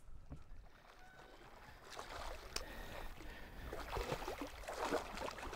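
A hooked muskie thrashing at the surface beside a boat's hull: irregular water splashing and sloshing that starts about two seconds in and is strongest near the end, with one sharp knock.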